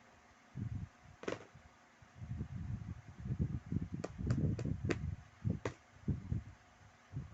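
Small toys being handled and set down: irregular dull thumps, with a sharp click about a second in and a quick run of clicks a little past the middle.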